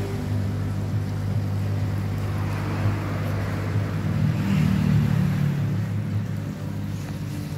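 Steady electric hum of the filtration system's pumps, over the rushing of air bubbling up through a tank of moving-bed plastic filter media.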